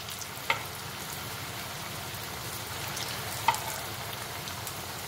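Chakli dough spirals deep-frying in hot oil, a steady sizzle with a couple of sharp pops, the loudest about three and a half seconds in. The dough is freshly added and still bubbling hard as its moisture cooks out.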